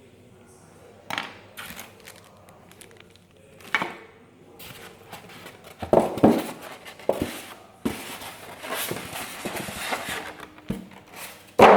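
Handling noises: irregular knocks and clatter of hard objects being picked up and set down, with rustling in between, and the loudest knock near the end.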